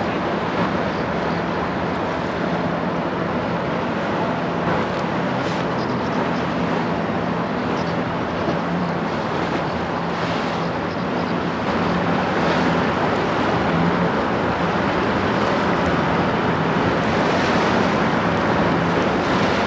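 Inland car-carrier ship's diesel engine running steadily as it passes, under the wash of choppy river water and wind on the microphone. The sound grows somewhat louder about two-thirds of the way through.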